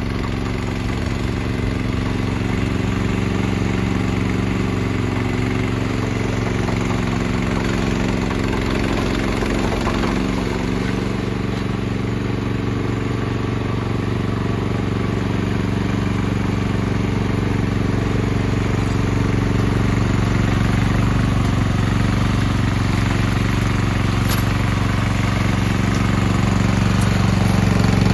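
Wado SX1392 tracked snow blower running steadily while clearing a path, its engine note unbroken and growing a little louder near the end.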